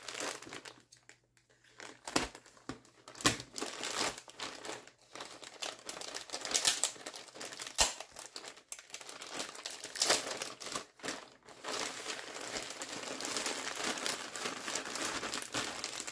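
Large clear plastic bag crinkling as hands open it and rummage through the beads inside, in irregular bursts that turn into near-continuous crinkling over the last few seconds.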